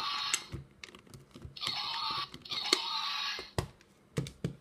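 Three breathy, hissing dinosaur-roar sounds, each about a second long, with light clicks and knocks of plastic dinosaur figures on a wooden table between and after them.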